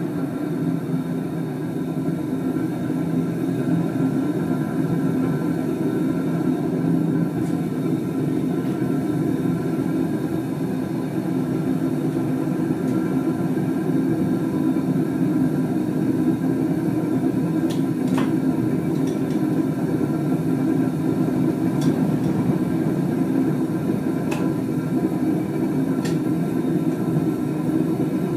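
Gas burner firing into a home-made foundry furnace built from an old gas cylinder, a steady low rushing roar of burning gas with no let-up. A few faint metallic clicks come in the second half.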